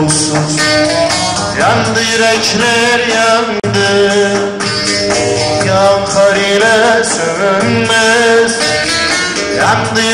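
Turkish folk music: a bağlama played with a male voice carrying a long, wavering melodic line over sustained low backing notes.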